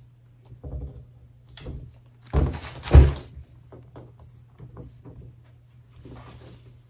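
Laptop in a hard plastic snap-on shell case knocking and thunking against a table as it is handled and set down. There are a few light knocks, then two loud thunks about two and a half and three seconds in, followed by faint clicks and taps as hands press the shell to clip it on.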